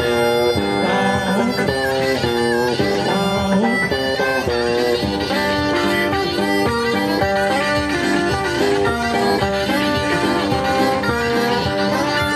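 Live blues band: a harmonica played through a vocal microphone, held notes with some bends, over electric guitar.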